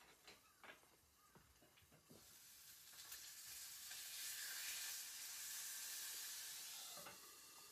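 Food sizzling in a hot pan on the stove. The sizzle builds about two seconds in, holds, and eases off slightly near the end, after a few light clicks at the start.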